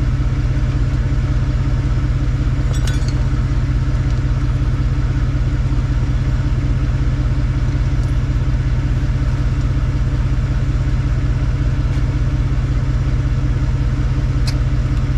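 Car engine idling steadily with its exhaust running through a freshly fitted pipe connector, a temporary repair that now sounds much better; it stops abruptly at the end.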